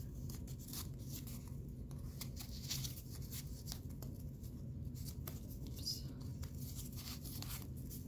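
Cardboard strips cut from paper towel and toilet paper rolls rustling and scraping against each other as they are threaded and woven by hand, a string of short light rustles and taps over a steady low hum.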